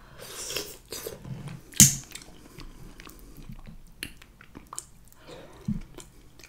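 Close-miked chewing of a saucy seafood boil, with a sharp mouth smack about two seconds in and scattered smaller clicks.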